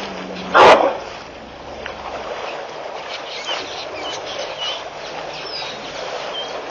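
A single short, loud animal call about half a second in, then outdoor ambience with a few faint, high bird chirps.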